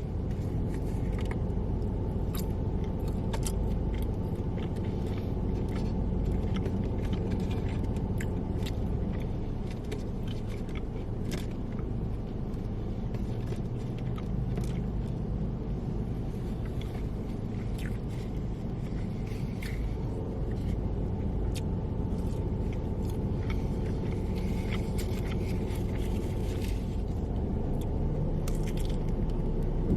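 Steady low rumble of background noise, with scattered short clicks and crunches of eating.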